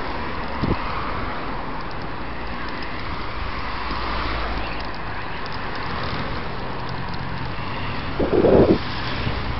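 Steady wind rushing over a helmet-mounted camera's microphone while moving along the path, with a brief louder burst near the end.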